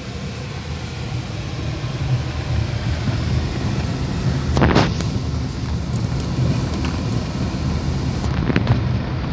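Car cabin noise while driving slowly on a rough, wet unpaved road: a steady low rumble of engine and tyres that grows a little louder, with a short knock about halfway through.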